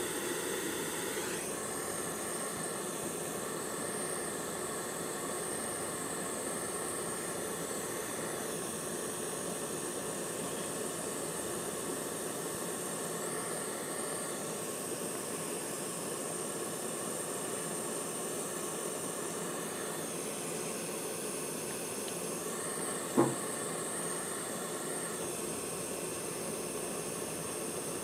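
Propane torch flame hissing steadily as it heats a 12-gauge copper wire splice for soldering, with one short click late on.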